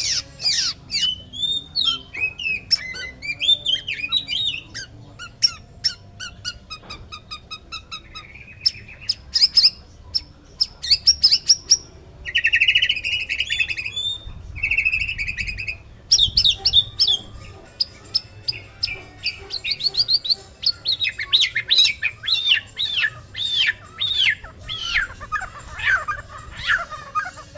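Male white-rumped shama singing in full, continuous song ('gacor'). The song is a varied run of whistled glides, fast trills and rapid clicking notes, with two harsh buzzy phrases about halfway through.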